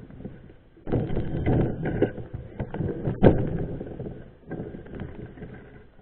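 Knobby-tyred mountain bike rolling over a bumpy forest dirt trail, with irregular rattling and knocks from the bike; the rattle picks up about a second in and the loudest knock comes about three seconds in.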